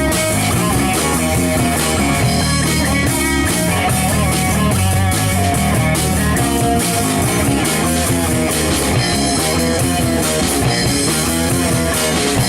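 A rock trio playing live, with electric guitar, bass guitar and drum kit, steady and loud.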